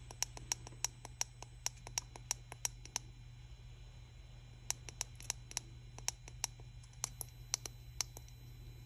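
Small tactile push buttons on a claw machine's circuit-board keypad clicking under repeated thumb presses, stepping a claw-power setting value. The clicks come a few a second in two runs, with a pause of about a second and a half between them, over a steady low hum.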